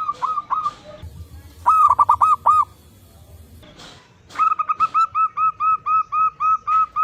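Zebra doves (perkutut) cooing in series of short arched notes. There are a few notes at the start, a quick burst of about six notes about two seconds in, and from about four seconds in a long even run of about a dozen notes at roughly five a second.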